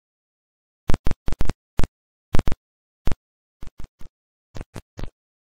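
About a dozen short, sharp impact hits in an uneven rhythm, with dead silence between them, making up an edited logo-intro sound effect. The hits grow softer after about three and a half seconds.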